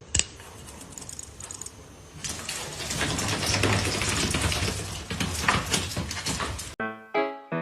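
A pet making rapid clicking and rustling noises in a small room, louder from about two seconds in. Cut off near the end by music.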